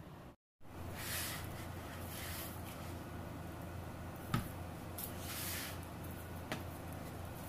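Faint kitchen handling noise over a steady low hum: a few brief hissy rustles and two small sharp clicks, with a short dropout in the sound near the start.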